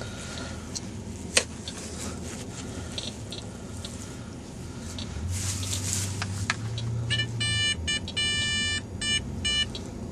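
A metal detector sounding a target signal, a run of rapid, high-pitched electronic beeps about seven seconds in, over a low hum. Before that there is faint scraping and a few clicks from digging in wet soil.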